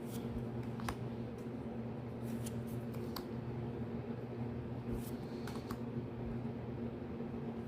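Trading cards from a booster pack being handled and flipped through, with scattered light clicks and slides of card stock over a steady low hum.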